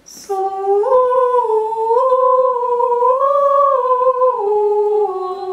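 A woman's voice humming a slow vocal exercise: one held tone that climbs by small steps, then drops back to the starting note and holds it.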